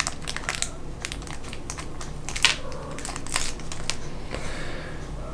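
Small plastic model-kit parts and tiny screws being handled: scattered light clicks with one sharper click about halfway, over some crinkling of a plastic parts bag.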